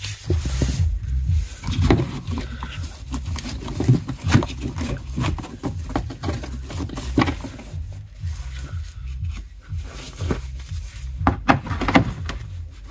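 Scattered clicks and knocks of a hand tool and gloved hands working the fasteners of a car's plastic undertray and wheel-arch liner.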